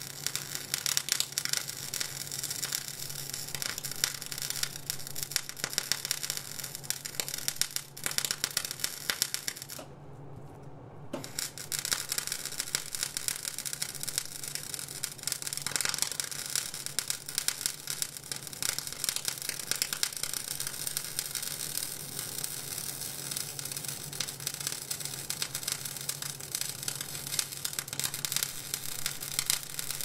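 Electric arc welding on steel: the arc's continuous crackling sizzle over a steady low hum. The arc breaks off for about a second a third of the way in, then strikes again and runs on.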